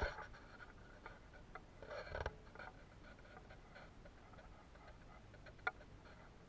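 Faint clicks and light knocks from handling a battery-powered LED work light on a metal workbench, with a cluster of handling noise about two seconds in and a single sharp click near the end.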